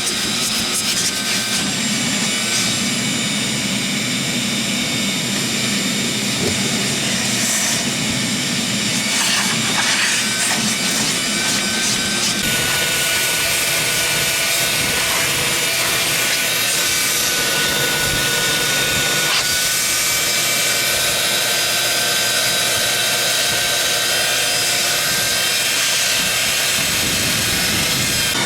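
Vacuum cleaner running steadily, a motor whine over rushing air; its sound changes abruptly about twelve and nineteen seconds in.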